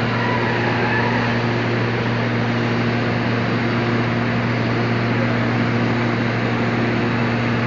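Blower of a stevia dryer running steadily: an even rush of air over a constant low electrical hum.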